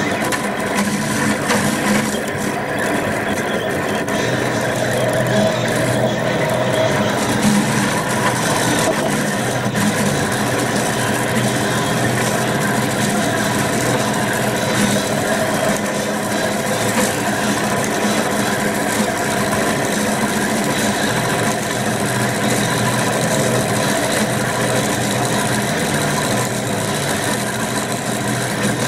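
Rostock delta 3D printer running a print: its stepper motors whine and buzz in tones that keep shifting as the hot end moves over the layer, over a steady mechanical hum.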